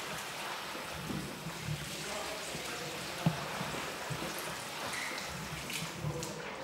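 Water running and splashing in a ceramic washbasin as gloved hands scrub and wring cloth under the tap, with small knocks against the basin and one sharp knock about three seconds in.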